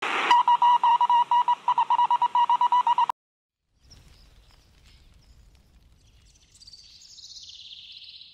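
A loud electronic beep at one steady pitch, stuttering rapidly on and off for about three seconds and then cutting off. After a short gap, faint outdoor ambience with birds chirping near the end.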